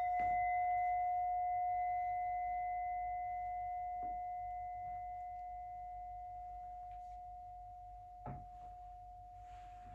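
Hand-held metal singing bowl ringing after a mallet strike: one long steady tone with a fainter higher overtone, slowly fading away. A faint knock comes near the end.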